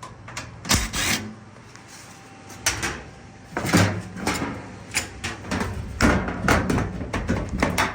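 Irregular knocks, clicks and scraping of a washing machine's panel being worked loose by hand, in several clusters with short pauses between.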